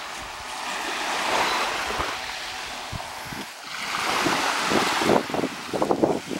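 Small waves washing and breaking on the beach, with wind buffeting the microphone; the splashing grows louder and choppier about two-thirds of the way in.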